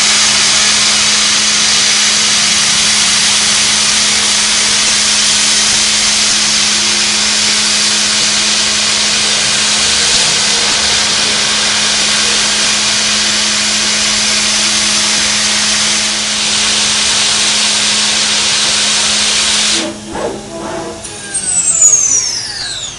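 CNC milling machine running with a loud, steady hiss and a low hum. About three-quarters of the way through, the hiss cuts off suddenly, followed by a few knocks and a falling whine as the spindle winds down.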